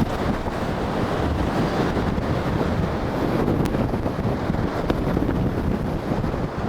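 Strong, gusty tropical-storm wind buffeting the microphone, with surf breaking underneath.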